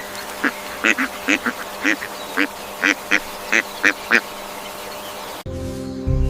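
Duck quacking: about a dozen short quacks in quick, uneven succession over about four seconds. Music cuts in near the end.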